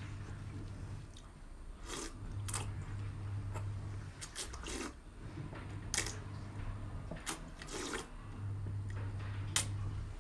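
Close-miked eating: chewing and wet mouth sounds in scattered short bursts.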